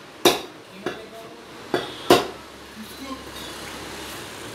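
Butcher's cleaver chopping raw chicken on a wooden log block: four sharp chops at irregular intervals in the first two seconds or so, then a couple of lighter knocks.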